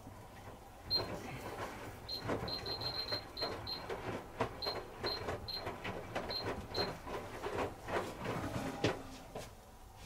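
Hoover H-wash 300 Plus washing machine tumbling its wash load: starting about a second in, the drum turns for around eight seconds with wet clothes falling and slapping, irregular clicks and knocks and a dozen or so short high pings, then stops.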